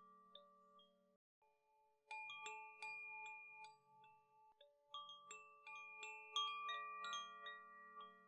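Quiet struck chime tones at several pitches, rung one after another and left to ring on. After a short gap about a second in, they come in two clusters, one from about two seconds in and the loudest from about five to seven seconds in.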